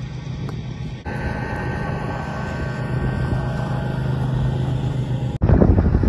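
A steady low mechanical hum, broken by abrupt cuts about a second in and near the end, after which loud wind buffeting on the microphone takes over.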